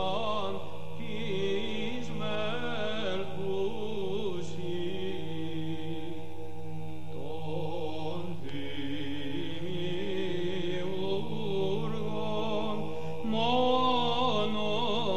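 Sung religious chant: a slow, wavering vocal melody over a steady held low drone, swelling slightly near the end.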